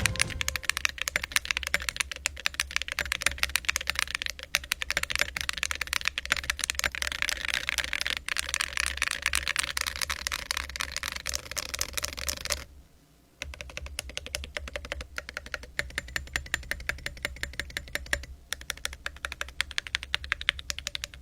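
Fast, continuous typing on a mechanical keyboard fitted with full metal keycaps: a dense stream of keystroke clacks. The typing breaks off for under a second a little past halfway, then resumes.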